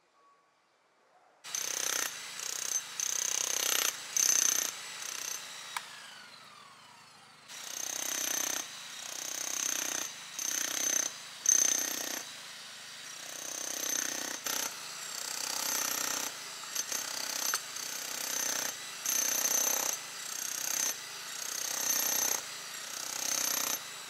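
Corded electric demolition hammer chiselling out pavement tiles and their mortar bed, starting about a second and a half in. It runs in repeated bursts of about a second with short pauses, and eases off briefly partway through.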